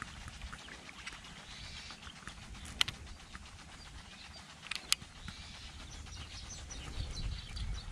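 Outdoor ambience by a pond: a run of faint rapid ticking, with two sharp clicks about three and five seconds in. Short high bird chirps come in during the second half, and a low wind rumble rises near the end.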